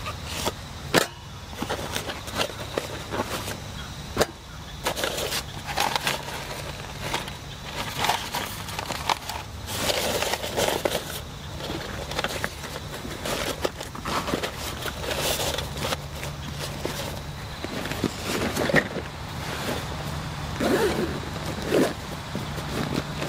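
Fabric gear cases being handled by hand: rustling and scraping of canvas, with irregular clicks and knocks as a gas canister and other gear are taken out and set down.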